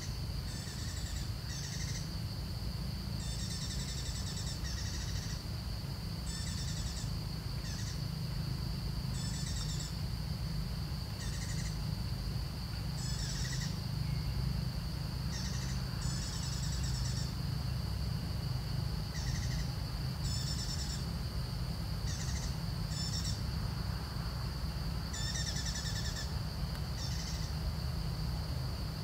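A bird chirping in short high calls, repeated irregularly about once a second, over a steady high-pitched drone and a low rumble.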